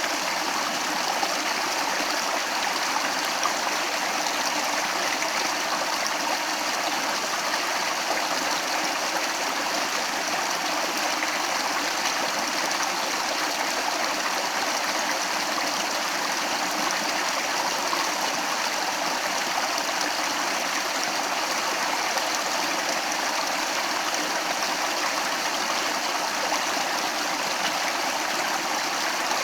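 Stream water flowing and burbling steadily, an even rush with no changes.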